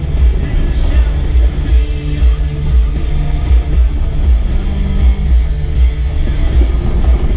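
Background rock music with guitar, heavy bass and a steady beat.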